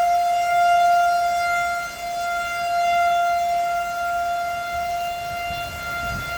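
Outdoor civil defense warning siren sounding one steady, unbroken tone, its loudness slowly swelling and fading, as a severe-weather warning for high winds. Wind rumbles low near the end.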